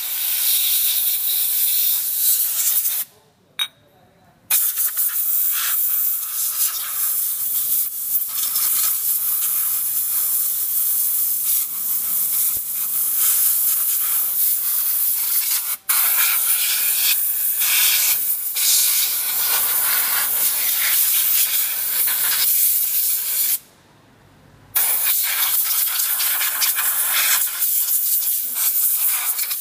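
Compressed-air blow gun hissing as it blasts belt dust off a scooter's CVT parts, the clutch bell and variator pulleys. The blast is cut off twice for a second or so, once a few seconds in and again near the end, and very briefly in the middle.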